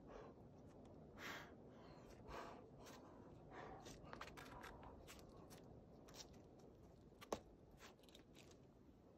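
Faint scuffs and scrapes of hands and climbing shoes on rock as a climber moves up a boulder, with one sharp tap a little over seven seconds in.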